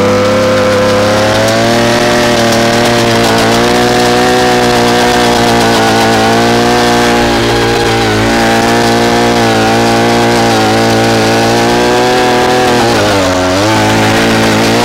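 Small engine of a one-man earth auger running at high revs while its spiral bit bores an 8-inch hole into the soil, the pitch wavering with the load. Near the end the revs sag briefly and then pick up again.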